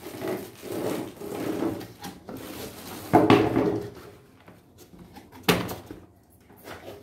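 Hands rummaging in a cardboard box: cardboard rubbing and scraping, with a louder scrape about three seconds in and a single sharp knock about five and a half seconds in.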